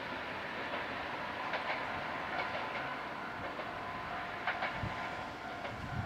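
A Tsugaru Railway diesel railcar running away down the line, a steady running noise with scattered clicks of its wheels over the rail joints.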